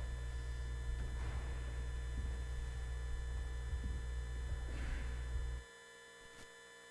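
Electrical hum from a church sound system's microphone channel: a deep, steady hum that cuts off abruptly about five and a half seconds in, leaving only a faint hum and a light click near the end.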